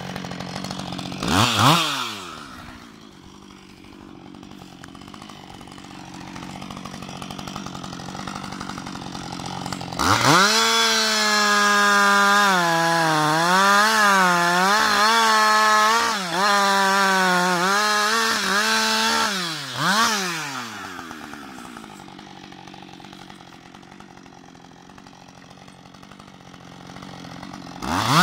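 Husqvarna 560XP two-stroke chainsaw idling with a short throttle blip, then about ten seconds in opened to full throttle and cutting through a log for about nine seconds, its pitch dipping and wavering under load. It then drops back to idle with another brief rev and revs up again near the end.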